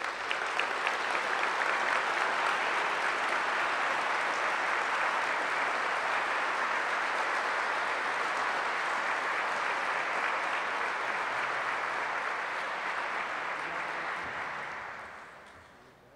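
Audience applauding, a steady clapping that dies away over the last couple of seconds.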